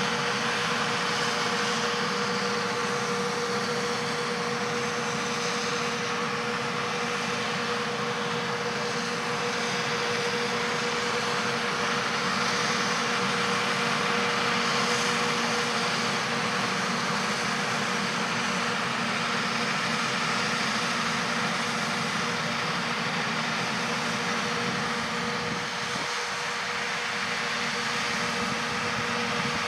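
John Deere 8R-series tractors pulling a peanut combine and a dump cart while picking peanuts: a steady drone of engines and harvesting machinery with a constant tone running through it.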